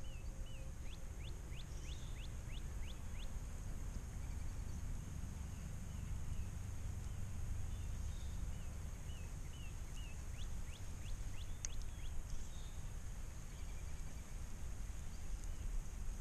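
Wind buffeting the microphone with a steady low rumble, while a songbird sings twice: a few short warbled notes, then a quick run of sharp notes, about three a second.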